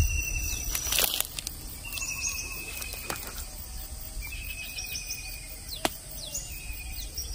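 Outdoor animal calls repeating every second or two, each a short high note followed by a long level whistle, over a steady high-pitched hiss. There is a low rumble and a brief knock in the first second or so.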